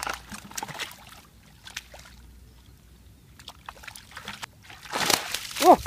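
Small splashes and trickling in a shallow muddy puddle, scattered light sounds that go quiet in the middle, then a louder burst of noise about five seconds in.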